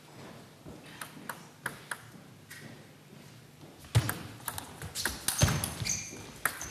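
Table tennis ball clicking back and forth off the bats and table in a rally. The hits are sparse at first and come faster and louder in the second half.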